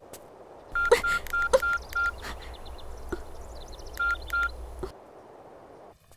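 Mobile phone keypad tones as a number is dialled: five quick beeps about a second in, then two more a couple of seconds later.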